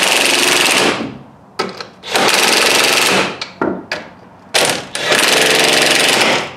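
Power drill run in three bursts of about one to one and a half seconds each, tightening nuts onto bolts through the door hinges.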